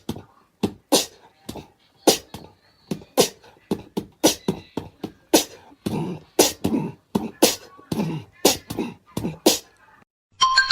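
A quick, uneven run of sharp percussive pops and thumps, about two or three a second.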